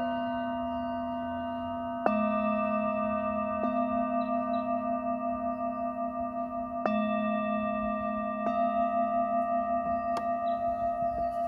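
Metal singing bowls struck with a padded wooden mallet: two firm strikes about two and seven seconds in and lighter ones between, each leaving a long ringing tone of several pitches that wavers in a slow, even pulse.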